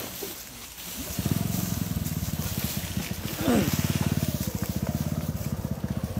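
A small engine running steadily at idle, a fast, even low pulsing that starts about a second in. A short voice is heard briefly about halfway through.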